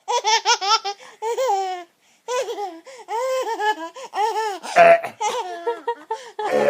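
Baby laughing in repeated high-pitched peals, broken about five seconds in and again near the end by a short harsh fake burp that sets off more laughter.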